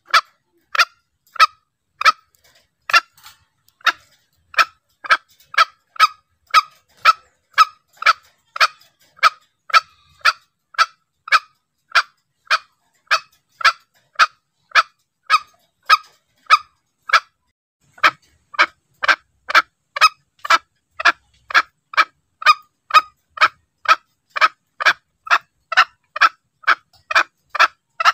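Green junglefowl calling: short, sharp notes repeated about twice a second in a steady series, with one slightly longer gap about seventeen seconds in. This is a recorded lure call used to draw junglefowl in.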